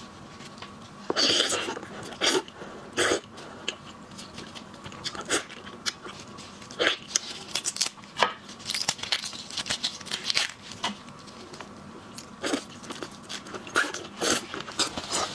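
Close-miked eating of seafood: irregular crunching, biting and chewing, with many sharp cracks and smacks scattered through.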